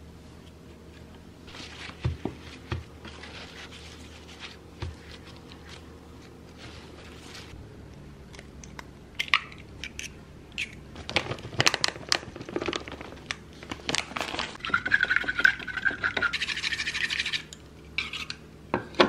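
Soft taps and rustles of raw beef slices being laid on a wooden cutting board, then an egg tapped and cracked. After that come chopsticks beating the egg in a wooden bowl: a fast, loud clatter lasting several seconds that stops suddenly.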